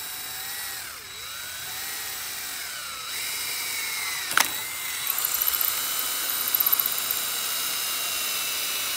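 Cordless drill driving number 8 by 3/4 inch screws to mount a door latch. The motor whine rises and falls as the speed changes, a sharp click sounds about four seconds in, and then the drill runs more steadily.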